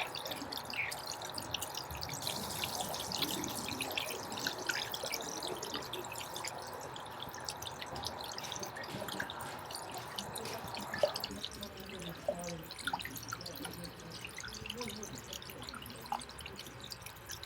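Water dripping and trickling, many small scattered drips over a steady wash, with a faint steady hum that stops about eleven seconds in.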